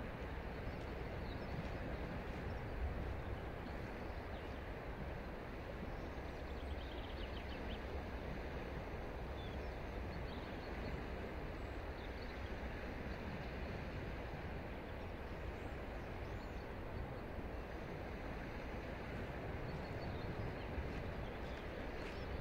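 Steady outdoor ambience: an even, constant rush of noise, heaviest in the lows, with a few faint high bird chirps now and then.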